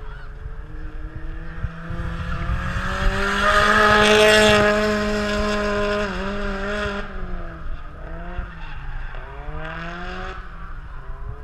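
Drift car's engine held at high revs with its tires squealing as it slides past, loudest about four seconds in. The revs then drop and rise and fall a couple of times as it drives off. Wind buffets the microphone throughout.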